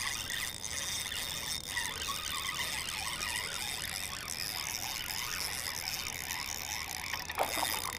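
Fishing reel being cranked to bring in a hooked bass, a steady whir.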